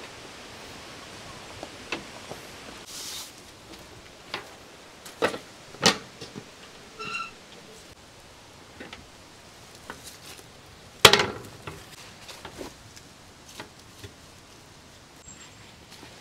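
Scattered knocks and clicks of camping gear being handled while a tent is set up, with one louder knock about eleven seconds in and a short squeak about seven seconds in, over a steady background hiss.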